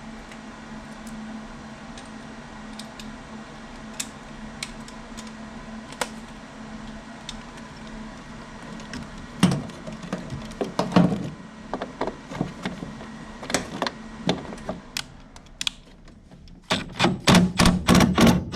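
A hand tool working a tight screw out of a furnace's sheet-metal inducer housing: scattered metal clicks and taps, a few heavier knocks about halfway, then a fast run of ratcheting clicks near the end, over a low steady hum.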